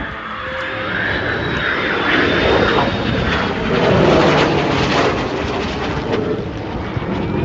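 Jet noise from the F-22 Raptor's twin afterburning turbofans during a flyby. The roar builds to its loudest about four seconds in, with a tone that slides down in pitch as the jet goes past, then eases off.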